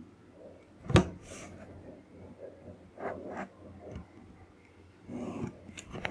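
Curved wooden ruler and pen handled on a paper notebook: a sharp knock about a second in, then softer taps and scrapes as the ruler is shifted and lines are drawn.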